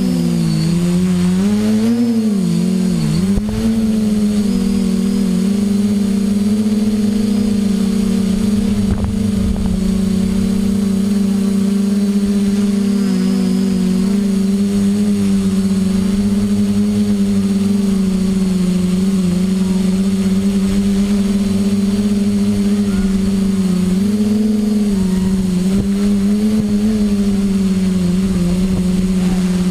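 Homebuilt multirotor drone's motors and propellers humming steadily, heard loud and close from its onboard camera. The pitch wavers up and down for the first few seconds as it climbs away after takeoff, then holds steady in flight, with another brief wobble near the end.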